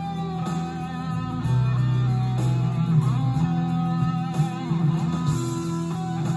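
Instrumental music led by electric guitar, played back from a cassette on a Teac C-3RX deck through Focal Sib-T loudspeakers and heard in the room.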